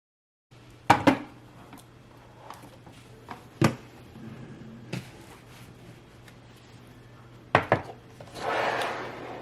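Hard objects being handled and set down on a surface: a handful of sharp knocks and clicks, two of them in quick pairs, followed by a short rustling swell near the end, over a faint steady hum.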